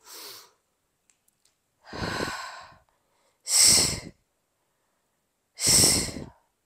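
A woman's forceful exhales paced with the effort of a single-leg Pilates bridge: a faint breath at the start, then three loud breaths about two seconds apart.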